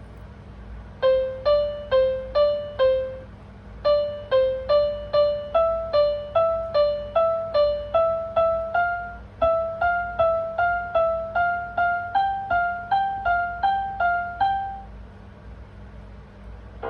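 Piano played one note at a time, slowly, at about two notes a second. First comes a short phrase of four notes, then a pause, then a longer line that climbs gradually in pitch and stops a couple of seconds before the end. A faint steady hum lies underneath.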